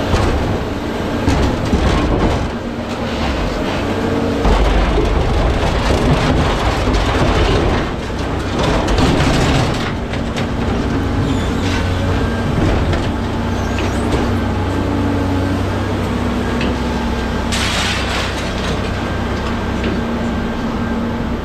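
Scrap material handler working its grapple over a steel trailer: its engine runs with a steady hum, and scrap metal crashes and clatters, loudest near the start, around nine seconds in, and briefly near the end.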